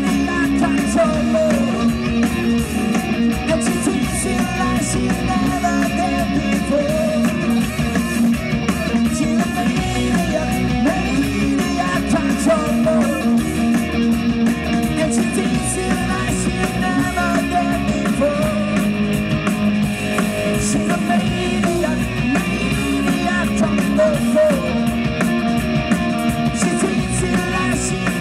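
Live rock band playing loudly and continuously: electric guitar over drums and cymbals, with a lead voice.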